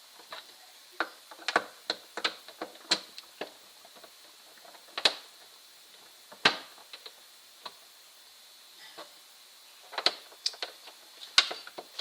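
Screwdriver tightening screws into a VIZIO sound bar's plastic housing: a series of sharp, irregular clicks and taps, clustered in the first few seconds, twice more in the middle, and again near the end.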